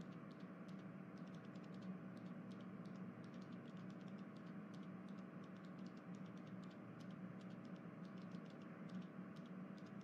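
Faint room tone: a low steady hum with light, irregular clicking.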